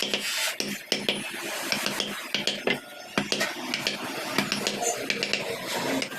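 Hand carving tools working wood: a run of irregular sharp taps and knocks mixed with scraping.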